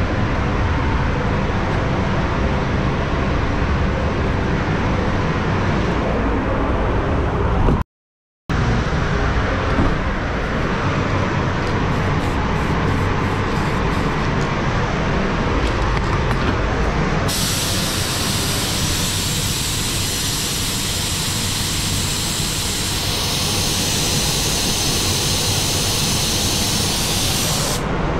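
Steady rumble of a paint booth's ventilation. A little over halfway through, a spray gun's air hisses continuously for about ten seconds, then cuts off near the end.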